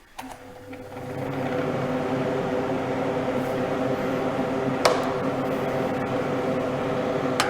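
Inline duct fan switched on, spinning up over about a second and then running steadily: a motor hum over air rushing through a 125 mm duct and out a vent grille with its damper open, with no whistle. A sharp click about five seconds in.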